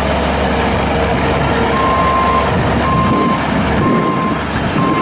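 Bobcat S450 skid steer loader's diesel engine running steadily while its backup alarm beeps, about once a second, starting a little under two seconds in: the machine is reversing.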